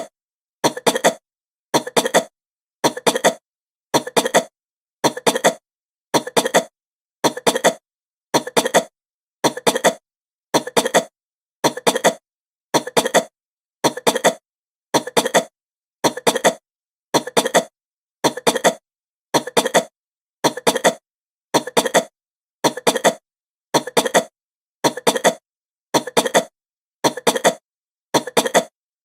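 A woman coughing in short, quick bursts, one burst about every second with silence between, repeating evenly throughout.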